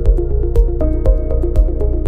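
Background music with a steady beat of about two beats a second over sustained bass notes.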